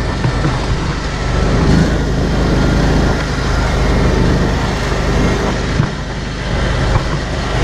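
Combine harvester running steadily: a deep engine drone under a rough mechanical noise. It is grinding, which the operator puts down to the feeder throat plugging up.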